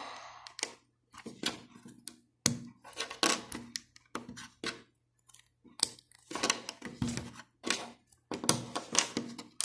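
Small plastic LEGO pieces clicking and snapping as they are pulled off and pressed onto a plate, in irregular sharp clicks with short pauses between.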